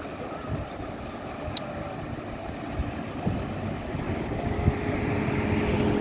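A low, uneven outdoor rumble with wind on the microphone, and a single short click about a second and a half in. An engine's steady hum comes in about two-thirds of the way through and grows louder.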